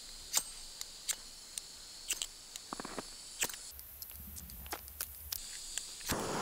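Ferro rod being struck against its striker over a backpacking canister gas stove: a series of short, sharp scrapes at irregular intervals, with a soft hiss midway. Near the end the stove catches and the burner runs with a steady rushing sound. The ferro rod is used because the stove's built-in igniter gives no spark, which the owner puts down to it having been left in the snow too long.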